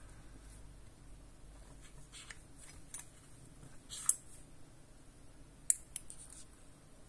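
Small clicks and light scraping of a manicure set's metal tools being worked out of the elastic loops of their case. A sharp click comes about four seconds in, and two more close together just before six seconds, as the nail clipper is taken out and handled.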